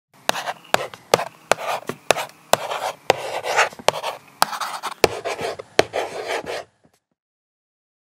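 Marker drawing strokes: scratchy rubbing broken by about a dozen sharp taps as the tip comes down, stopping abruptly about seven seconds in.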